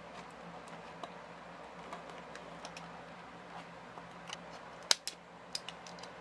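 Scattered small clicks and taps of plastic packaging being worked off a small die-cast figure by hand, with two sharper clicks about five seconds in.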